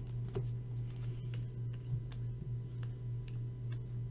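Scattered light clicks and taps of glossy chrome trading cards being flipped and shuffled in the hands, over a steady low hum.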